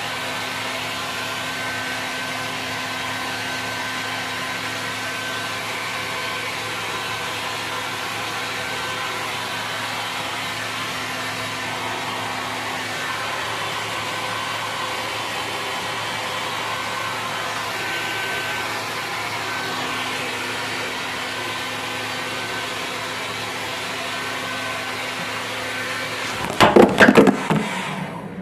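Panasonic EH-ND11 hair dryer running, a steady fan whir with a faint hum. Near the end it stops amid several loud knocks and rattles of handling.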